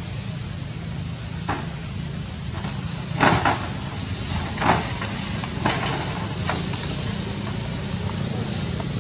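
Scattered knocks and rattles from a young monkey clambering over a corrugated metal roof, the loudest a quick cluster about three seconds in, over a steady low rumble.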